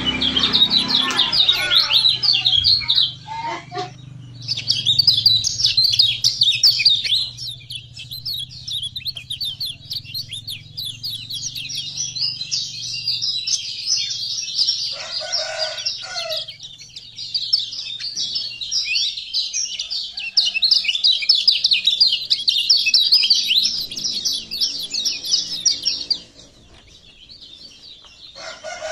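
Kecial kuning (lemon-bellied white-eye) singing a fast, high twittering song of rapid chirps in long runs. It pauses briefly about three seconds in and falls quiet near the end. A short lower call cuts in about halfway through.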